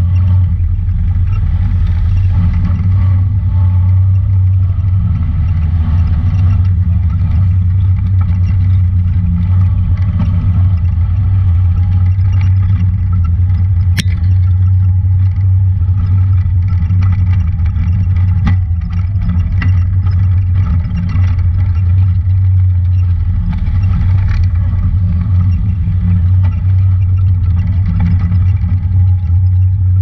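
Honda Talon 1000 side-by-side's parallel-twin engine running with a steady low drone while driving a rough trail, with scattered clicks and knocks and a sharp one about fourteen seconds in.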